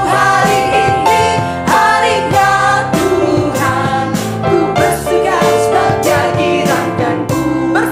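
Church worship band playing a song, with sung vocals over instruments and a steady drum beat.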